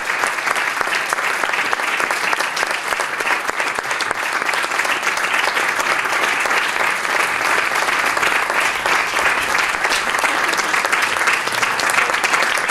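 An audience clapping steadily, a dense applause that keeps an even level.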